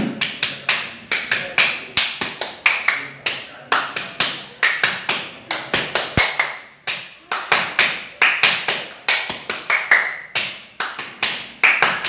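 Hand percussion: a quick, uneven rhythm of sharp claps and slaps made with the hands, about three strikes a second with some in quick pairs.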